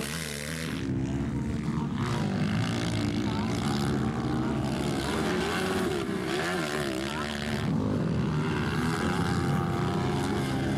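Single-cylinder 230cc four-stroke dirt bike engines (Nacional 230cc class: Honda CRF230 and Yamaha TTR230) running under throttle over the jumps, the pitch rising and falling as the riders open and close the throttle, with a few abrupt changes in the sound.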